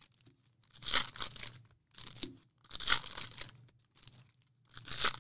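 Foil trading-card pack wrappers being torn and crinkled by hand, in four short bursts about a second or two apart.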